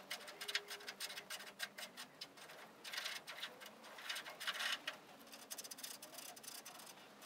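Hand die in a die holder being turned down a rusty, oiled steel fender stud, chasing the thread clean: faint, irregular clicking and scraping as the die cuts.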